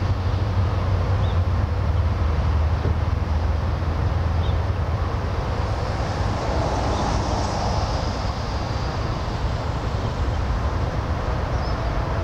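Wind buffeting the microphone: a steady low rumble and hiss, with a few faint, short chirps scattered through it.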